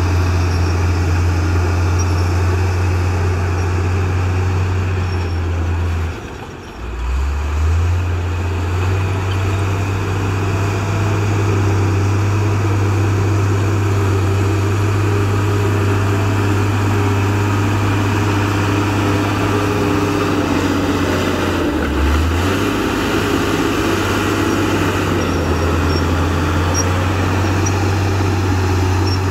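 Crawler bulldozer's diesel engine working as it pushes dirt, a deep steady drone. The engine note drops briefly about six seconds in and again around twenty-two seconds, then climbs back up.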